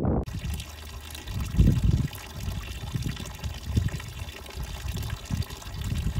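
Thin stream of water running from the metal spout of a stone spring fountain and splashing into its stone basin, a steady trickling hiss with some low thumps underneath.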